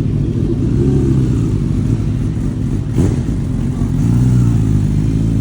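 A motor-vehicle engine running loudly with a low, steady rumble. Its pitch swells briefly about a second in and again near the end, and there is one sharp click about three seconds in.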